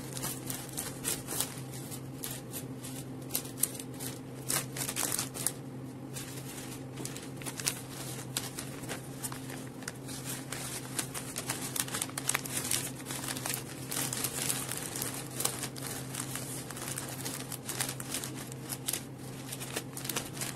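Florist wrapping paper rustling and crinkling as it is handled and folded around a bouquet, in quick irregular crackles, over a steady low hum.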